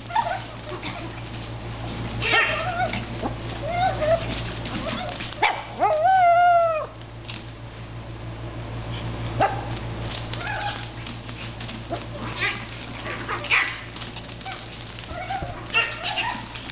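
Japanese Chin dogs playing: scattered yips and short barks, with one long, loud whining yelp about six seconds in, over a steady low hum.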